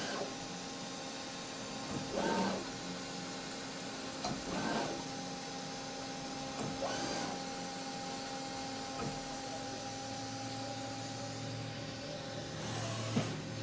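CNC vertical mill spot-drilling a bolt circle in a steel ring. A steady machine hum runs under a short cutting sound that comes about every two and a half seconds as the spot drill goes into each hole position in turn.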